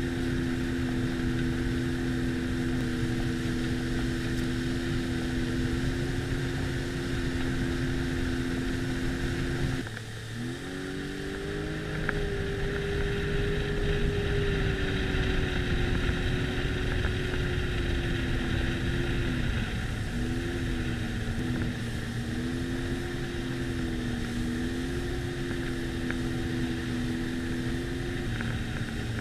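Sea-Doo personal watercraft engine running under way at steady cruising speed. About a third of the way in the engine note drops briefly and then climbs back to a higher pitch as the throttle is eased and reopened. The pitch wavers a few more times later on.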